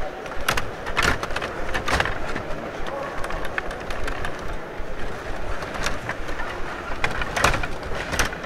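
Table hockey game in play: the rods rattle and slide in the table as the players spin and push the plastic figures, broken by sharp clacks of the puck striking figures and boards. The clacks are loudest about one and two seconds in and again about seven and a half seconds in.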